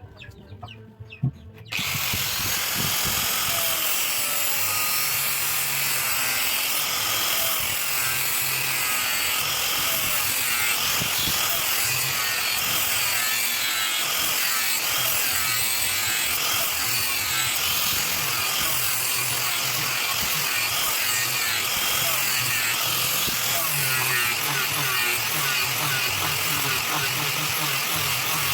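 An electric grinder working steel: a sharp knock, then the grinder starts about two seconds in and runs steadily and loudly under load, its pitch wavering as it bites.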